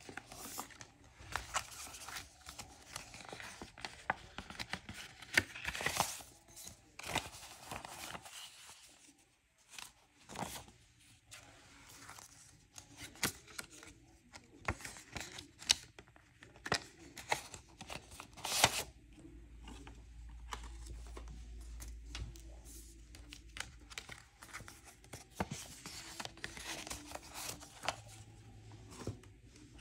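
Paper envelopes and banknotes being handled: rustling and crinkling of paper with scattered sharp snaps and flicks as cash is pulled out and counted, one snap a little past the middle louder than the rest.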